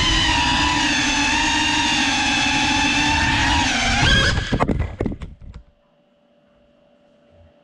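FPV quadcopter's brushless motors and propellers whining steadily in flight, the pitch rising about four seconds in, then stuttering and cutting out over the next second and a half as the drone crashes. After that only a faint steady tone remains.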